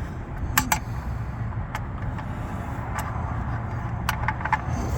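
Light metallic clicks and clinks of a socket and ratchet being handled and fitted, several scattered sharp ticks. Under them runs a steady low rumble of vehicle noise.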